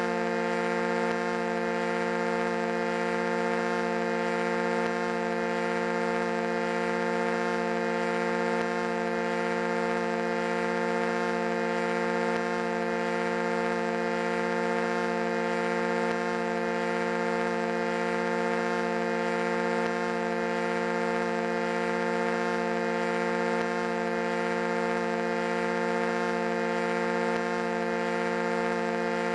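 Foghorn blowing one long unbroken blast: a steady low note with many overtones that neither rises, falls nor stops.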